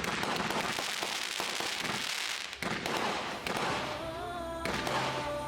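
Consumer fireworks going off in a dense run of crackling pops and bangs. Music comes in about four seconds in.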